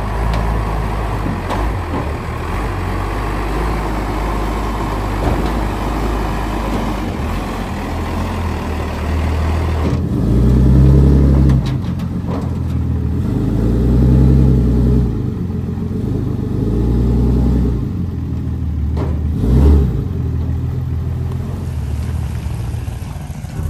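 Pickup truck engine running, then revving up in three surges as the truck is driven up the ramps onto a flatbed trailer, with a sharp thump shortly after the last surge.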